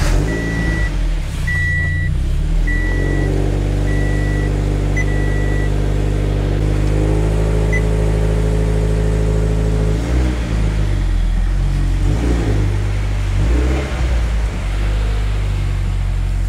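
Subaru BRZ's FA20 flat-four engine idling steadily just after starting, while a high-pitched car warning chime beeps about five times in the first six seconds. Later the engine note shifts and wavers several times as the car is put in reverse and begins to move.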